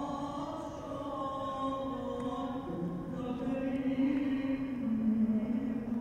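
A man's voice chanting from the mosque in long held notes that step slowly up and down in pitch, loudest about two-thirds of the way through.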